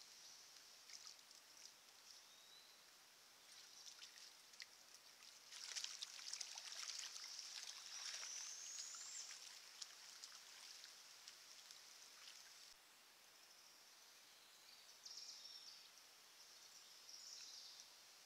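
Faint sounds of a shallow creek: light splashing and trickling of water with scattered clicks over a high steady hiss, busiest around the middle, with a brief rising whistle near the middle.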